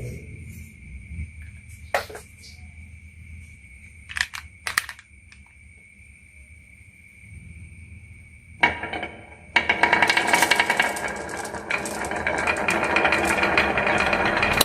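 Marbles on a wooden marble run: a few separate clicks and knocks, then a dense, loud clatter of rapid clicks starting about nine seconds in as many marbles rattle down the track together.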